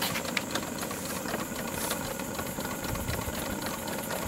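Small live-steam plant of a model paddle-wheel boat running: a steady hiss of steam venting from a pipe on the hull's side, over a fast, fine ticking rattle.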